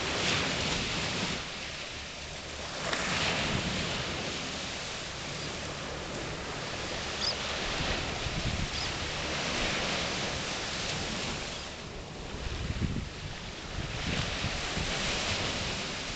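Small surf waves washing up onto sand and around rocks, surging every few seconds. A low gusty rumble of wind buffets the microphone.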